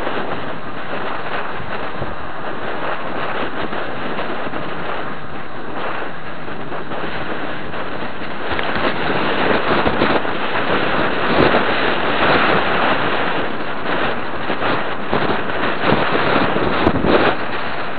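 Wind rushing over the microphone of a helmet-mounted SJ4000 action camera on a moving bicycle: a steady rush that grows louder and gustier about halfway through.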